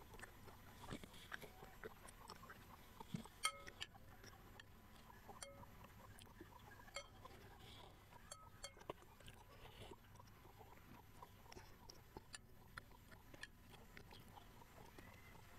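Faint eating sounds: soft chewing of sticky glutinous rice balls, with a metal spoon clicking against a glass bowl every second or two, a few clicks carrying a brief ring.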